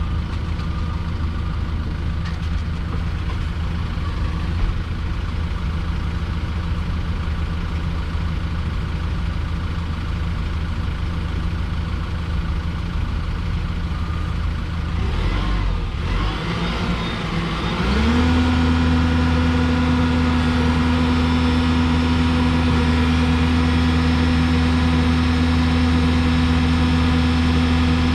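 Diesel engine of a Yale forklift running at idle, then about two-thirds of the way through it speeds up and holds a steady, louder, higher-pitched drone under load as the hydraulics are deadheaded to heat the engine and exhaust.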